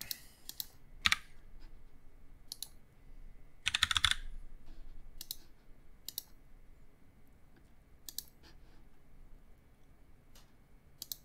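Computer keyboard and clicks: scattered single clicks, with a short quick run of typing about four seconds in.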